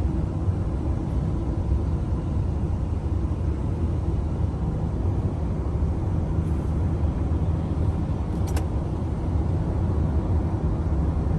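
Steady low rumble of a car in motion, road and engine noise, with a single short click about eight and a half seconds in.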